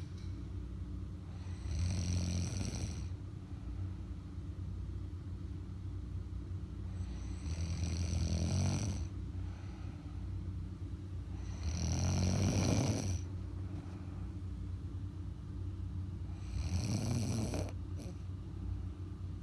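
A woman snoring in her sleep: four long, rasping snores at a slow, regular pace, about five seconds apart.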